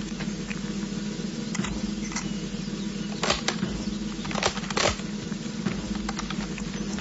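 Military rifles being handled: a scatter of small clicks and rattles, with a louder cluster of four sharp metallic knocks between about three and five seconds in, over a steady low hum.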